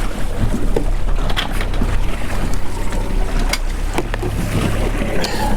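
A fishing boat's engine running steadily with a low hum, with wind and water noise, and a few sharp knocks, the loudest about three and a half seconds in.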